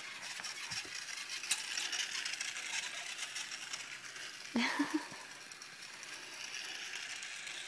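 Battery-powered toy train running around a small circular plastic track, its little motor and gears giving off a steady rattling, clicking run as the wheels tap along the rails.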